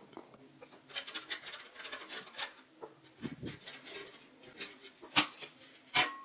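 Faint scattered clicks and light scraping from the NAS's metal thumb screws being turned out by hand and the metal case being handled, with two sharper knocks about five and six seconds in as the back panel comes loose.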